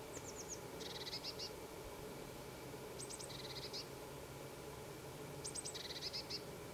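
A small songbird sings the same short phrase three times: a few quick high notes, then a fast trill. A faint low steady hum sits underneath.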